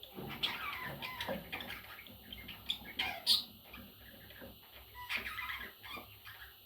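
Budgerigars chattering and warbling: a steady stream of short chirps, with a sharper high call about three seconds in.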